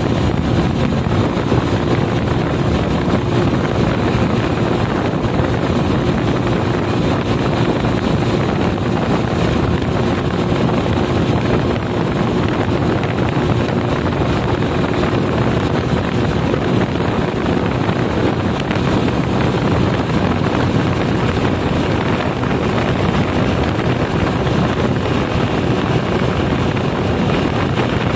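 Wind rushing steadily over the microphone of a moving motorcycle, over the even hum of its engine at a constant cruising speed.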